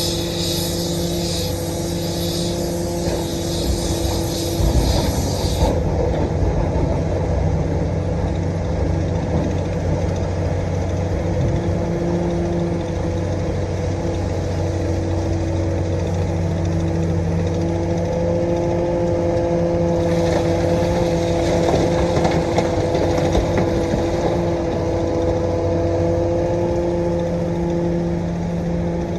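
Komatsu PC450-8 LC excavator's six-cylinder diesel engine running steadily under working load, with a higher hissing layer in the first six seconds and again about twenty seconds in.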